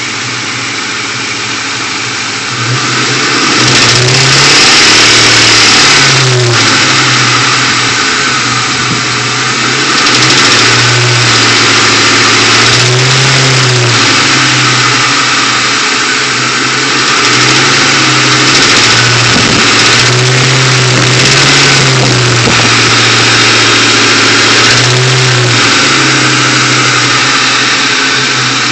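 2001 Mustang GT's 4.6-litre V8 running and being blipped up and down repeatedly, with a clacking knock that shows only between about 1000 and 1500 rpm and goes quiet below and above. New timing chains and tensioners did not cure it, and its cause is unknown.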